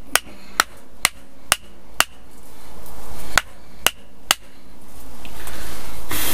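A hatchet used as a hammer, its back striking in sharp blows: five about twice a second, a pause, then three more.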